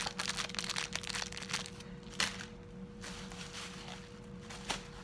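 Packaging being handled: rustling and crinkling with small clicks, busiest in the first two seconds and sparser after, with a single sharp click near the end.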